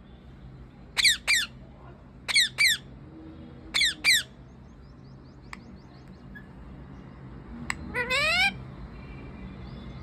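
Green parakeet calling: three pairs of short, harsh squawks about a second and a half apart, then a longer rising call near the end.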